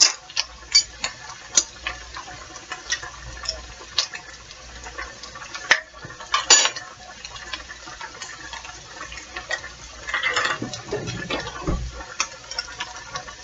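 Clinks and taps of kitchen utensils and a jar being handled at the counter: scattered sharp taps, louder ones about six seconds in, and a short scraping stretch about ten seconds in.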